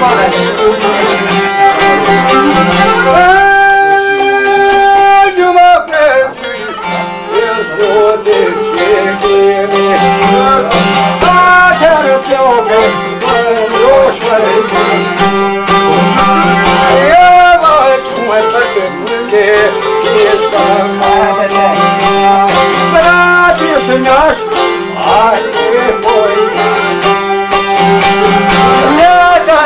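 Albanian folk music played on two long-necked lutes, a sharki and a çifteli, plucked together with a bowed violin, and a man's voice singing over them.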